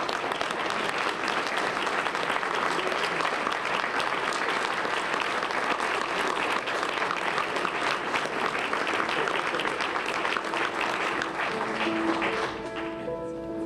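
Audience applauding steadily, clapping hands as a standing ovation. About a second before the end the clapping dies away and held musical notes begin.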